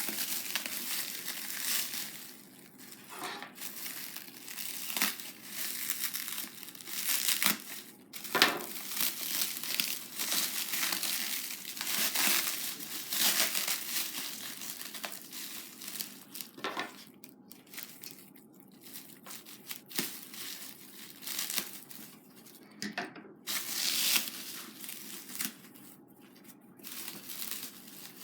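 Plastic cling wrap and packaging crinkling and tearing, in irregular rustles and crackles, as a wrapped costume is handled and unwrapped by hand.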